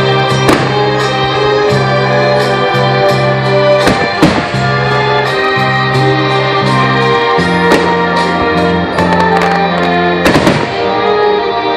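Music with sustained organ-like chords and a steady bass line, over which firework shells burst with sharp bangs several times, loudest about four seconds in.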